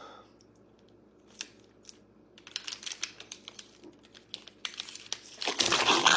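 Plastic crinkling and clicking from a bottle being handled as Sprite is poured: a few scattered clicks at first, busier after about two seconds, and loudest just before the end.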